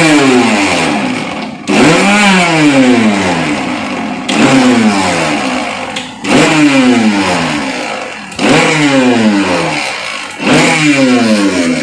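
Kenstar mixer grinder motor pulsed on and off, jar holding curd and sugar: about every two seconds it spins up with a whine that falls in pitch as the motor coasts down after each press. It is run in short bursts rather than continuously so the curd blends without churning out butter.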